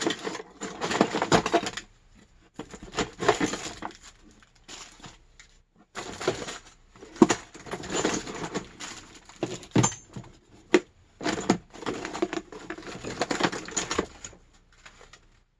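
Rummaging through a box of loose plumbing parts and tools: pieces clattering, scraping and knocking together in irregular bursts with short pauses between them.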